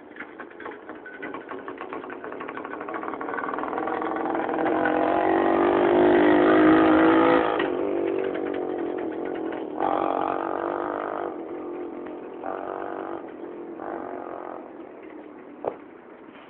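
Riga-12 moped's 50 cc single-cylinder two-stroke engine running under throttle, growing louder as it comes close, loudest about seven seconds in, then dropping away and fading with several short bursts of throttle. A sharp click just before the end.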